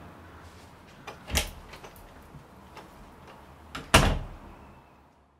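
A door handled and shut: a click and a bump just over a second in, then a latch click and a loud door thud about four seconds in that rings out briefly.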